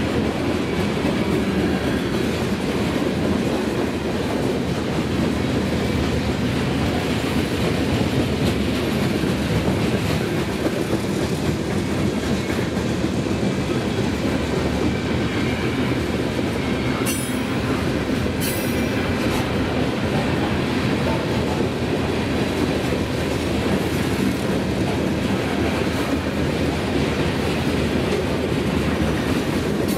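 Freight train of covered hopper cars rolling past at speed: steady wheel-on-rail rumble with wheel clatter. Two brief high-pitched bursts come a little past halfway.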